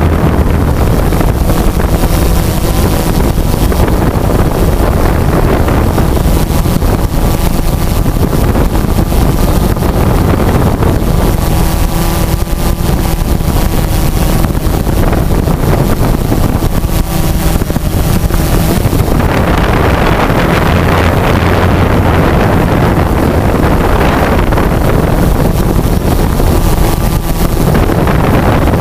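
DJI Phantom 2 quadcopter's four electric motors and propellers running steadily in flight, heard from the camera mounted on the drone, with wind buffeting the microphone. Loud and constant, with a faint motor whine that shifts in pitch around the middle.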